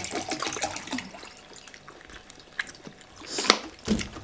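Water poured from a plastic jug into a glass, splashing and trickling, then dribbling away. Near the end come a loud sharp knock and a lower thump.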